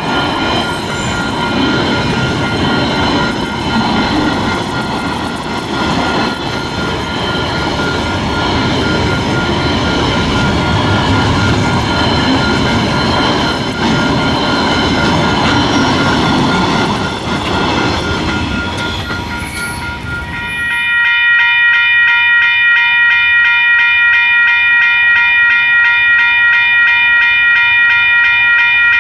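A train passing over a level crossing while the crossing bell rings in an even, repeating pulse. About two-thirds of the way in, the train noise drops away abruptly and the bell rings on alone, clearer.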